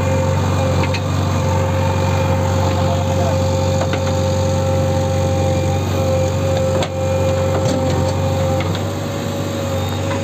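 JCB 3DX backhoe loader's four-cylinder diesel engine running steadily under load as the backhoe digs and lifts soil, with a steady high whine over the engine drone. A few light knocks.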